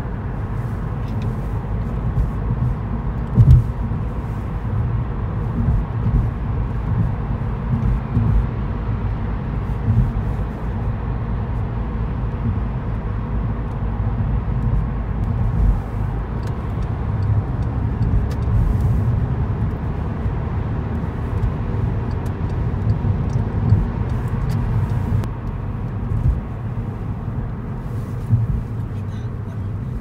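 Road noise heard from inside a moving car: a steady low rumble of tyres and engine, with a brief thump about three and a half seconds in.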